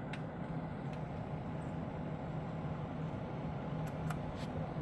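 A steady low hum under a few faint clicks and handling rustle, as a USB cable is fumbled into its port behind a desk.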